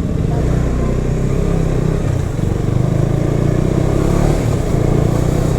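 Motorcycle engine running steadily on the move, its pitch drifting slightly up and down with the throttle.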